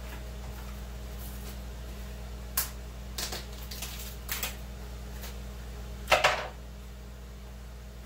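Knife and vegetables knocking and clattering on a countertop cutting board: a few scattered short knocks about two and a half to four and a half seconds in, then a louder clatter about six seconds in, over a steady low hum.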